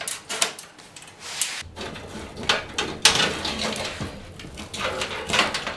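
Knocks, clicks and scraping of a computer power supply being handled and slid into place in a tower case.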